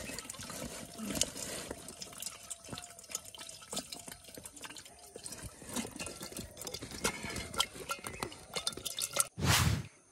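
Small live fish flicking in a wet aluminium bowl: irregular light ticks and wet patter. A loud rumble about half a second long comes near the end.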